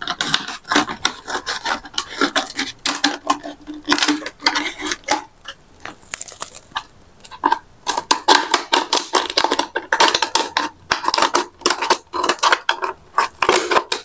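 Scissors snipping down the side of a thin plastic drink bottle, the bottle crackling and crinkling under the blades in a quick run of repeated cuts.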